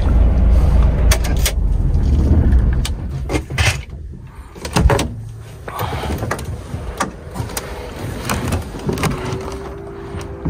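Low diesel truck engine rumble that falls away about four seconds in, followed by scattered clanks and knocks. A steady motor whine starts near the end.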